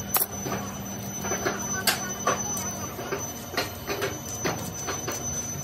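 Irregular light knocks, clicks and scrapes of a small metal hand tool and hands working a sand-casting mould: an iron moulding box with round metal patterns set in black moulding sand. A steady workshop hum runs underneath.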